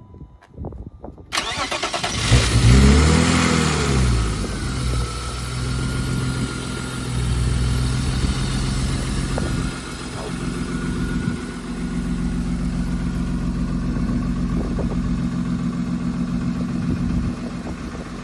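BMW E34 525i's inline-six engine starting: it catches about two seconds in, the revs rise and fall back, and it settles into a steady idle. It is started to warm the oil before draining it for an oil change.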